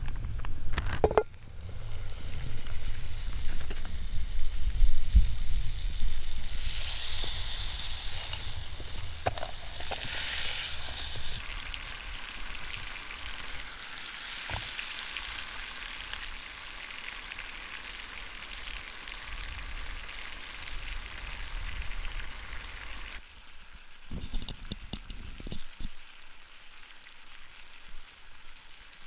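Steady hiss of rain falling, with low wind rumble on the microphone through the first half. The rain noise drops off suddenly near the end, leaving a quieter hiss with a few light ticks.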